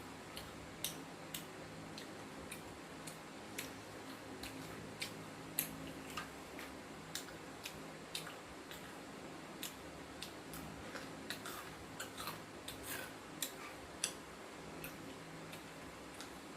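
Crunching of crisp batter-and-panko-coated fried basa fish being chewed: irregular sharp crunches, a few every second, over a faint steady hum.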